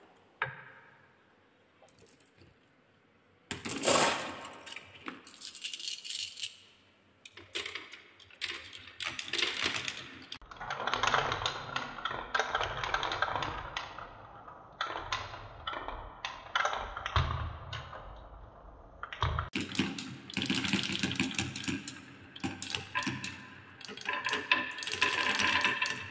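Glass marbles rolling and clattering down wooden marble-run tracks, spiral and zigzag channels: a dense rattle of small clicks. It starts a few seconds in, after a quiet stretch, and breaks off suddenly twice.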